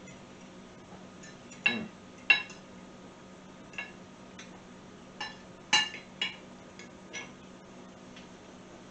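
Metal forks and knives clinking and scraping on ceramic dinner plates while people eat: about seven short, irregular clinks, each with a brief ring, the loudest a couple of seconds in and again past the middle.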